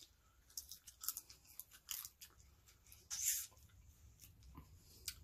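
Close-miked chewing and crunching of green papaya salad with pieces of raw crab: faint, irregular crunches and mouth clicks, with a short breathy hiss about three seconds in.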